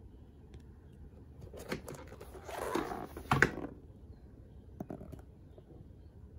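Hands handling a vintage Coach leather handbag, opening the flap and inner pocket: rustling of leather with a few sharp clicks, the loudest about three and a half seconds in, then a couple of faint ticks.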